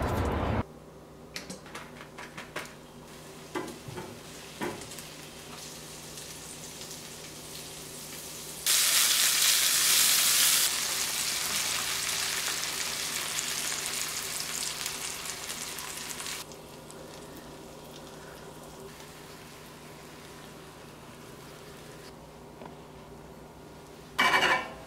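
Beaten eggs hit a hot pan of cherry tomatoes and pancetta and start sizzling loudly all at once about nine seconds in; the sizzle fades over several seconds to a quieter frying hiss. Before it come scattered light knocks and clicks of kitchen prep, and near the end there is one short loud burst as the omelette is worked in the pan.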